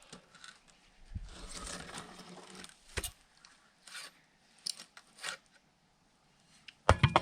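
A log splitting apart along its heart as it is levered with a froe: wood fibres tearing and crackling about a second in, then several sharp cracks, and a few loud knocks near the end.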